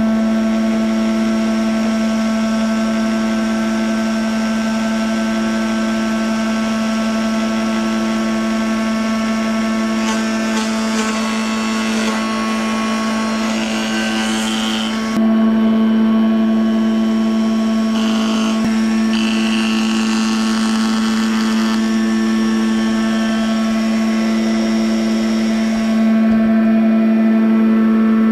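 Small spindle moulder running with a steady hum, its cutter biting into an oak frame piece to cut a stopped rebate. The cutting noise comes in the middle stretch, about ten to fifteen seconds in and again around eighteen to twenty-two seconds.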